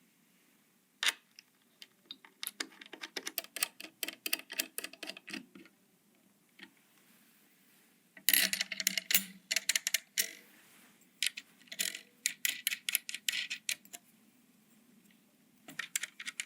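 Bursts of rapid small clicks and taps from hard parts being handled and fitted together during PC assembly, in four clusters separated by short pauses.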